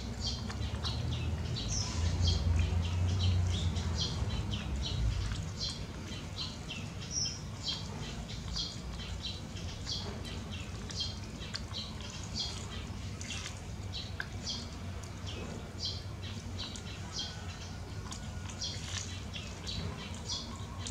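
Baby macaque chewing and biting boiled corn on the cob: a run of short, irregular wet smacking and crunching clicks, about two a second. A low rumble sits under the first few seconds.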